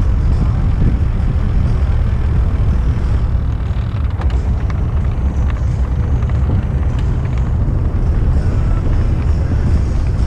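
Velomobile rolling along a paved city street: a steady low rumble of the tyres and the hollow shell, with a few faint clicks around the middle.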